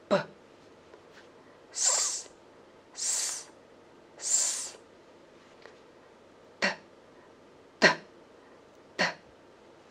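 A woman pronouncing isolated letter sounds for a phonics lesson in Amfo'an (Uab Meto): one short "p" at the start, then a hissing "s" three times, then a crisp "t" three times, each sound separate and about a second apart.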